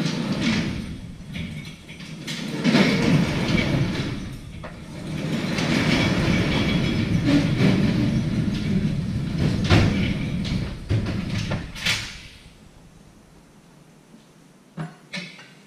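A large shop door being opened, rolling and rattling in its track in a few long pulls before it stops. Two short knocks follow near the end.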